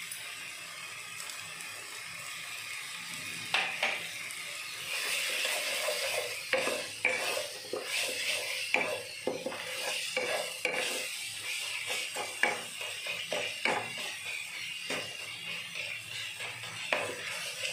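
A wooden spatula stirs and scrapes a thick masala paste frying in a metal kadai, over a steady sizzle. From about three and a half seconds in, the spatula knocks and scrapes against the pan again and again, unevenly. The masala is being fried through before water is added.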